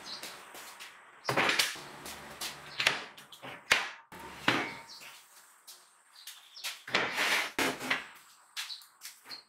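Irregular knocks and short clattering noises, like workshop parts being handled, set down and struck, loudest in clusters about a second and a half in, around three and four and a half seconds in, and again about seven seconds in.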